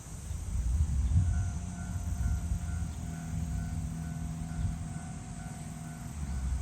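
Japanese railway level crossing alarm starts ringing about a second in, a steady, regularly repeating electronic tone, over a low rumble.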